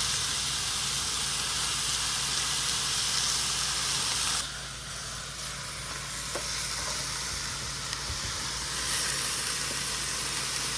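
Chicken, bell pepper and onion sizzling in oil on a screaming-hot Blackstone flat-top griddle, a steady frying hiss. It drops noticeably about halfway through and picks up again near the end.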